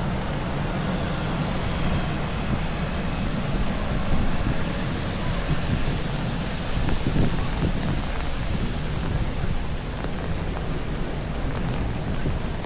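Steady heavy rain with gusty wind buffeting the microphone, swelling briefly about four and seven seconds in.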